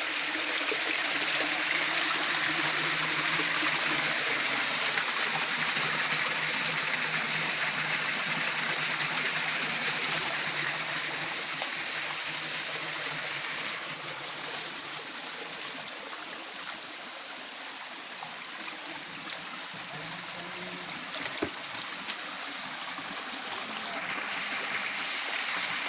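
Stream water rushing steadily over stones, easing off about halfway through and growing louder again near the end.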